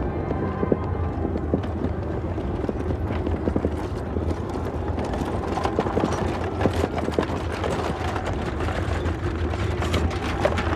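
Hooves of two horses clip-clopping and a wooden wagon rattling as it approaches over rough ground, the knocks growing louder and closer about halfway through. Steady wind noise with a low rumble runs underneath.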